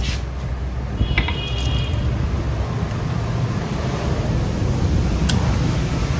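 Steady low rumble of wind on the microphone. About a second in, a single hammer strike on metal rings briefly, and a lighter tap follows near the end.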